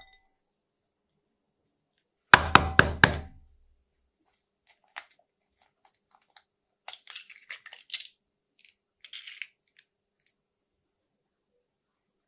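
An egg knocked four times in quick succession to crack its shell, each knock with a dull thud, followed a few seconds later by soft crackling as the shell is pulled apart and the egg is opened.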